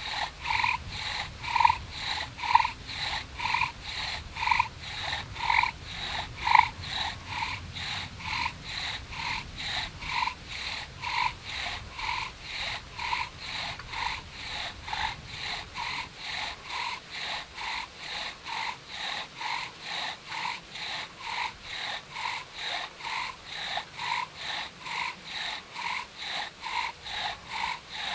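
Bow drill fire-starting: the wooden spindle squeaking in the hearth board on each stroke of the bow, an even rhythm of about two to three strokes a second that gets a little quicker in the second half, working up an ember.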